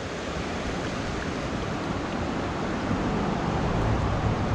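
River water rushing steadily, growing a little louder, with a low hum coming in near the end.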